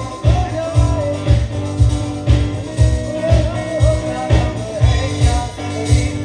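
Live band music: a man singing into a microphone over a drum kit, with a heavy kick-drum beat about twice a second.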